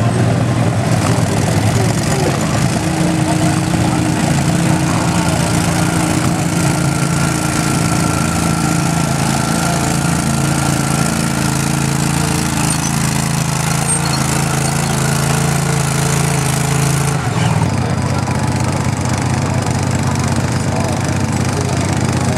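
Small garden tractor engine running hard and steady under load while pulling a weighted sled. The engine note changes abruptly about 17 seconds in.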